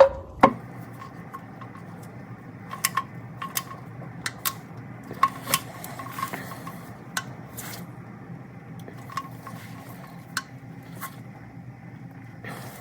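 Irregular metallic clinks and taps of hand tools and parts being handled, over a steady low hum.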